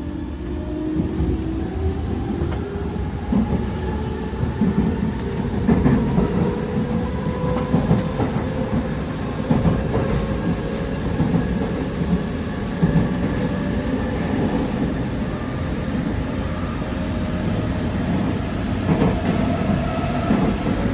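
JR West 207 series EMU with a Toshiba GTO inverter running under power: several inverter tones rise slowly in pitch over the low rumble of the wheels, with clicks from rail joints. This set's acceleration sound is out of step with other 207 series sets, an abnormal inverter noise.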